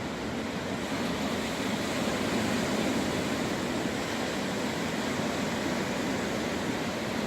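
Steady rushing noise of beach surf and wind on the microphone, swelling a little about a second in.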